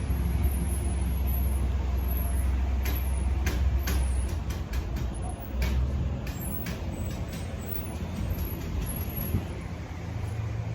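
A motor vehicle's engine running with a steady low rumble, with scattered sharp clicks and ticks over it.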